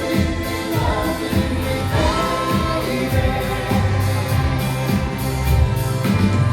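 Live soft-rock band music: full band with bass and drums playing under singing voices.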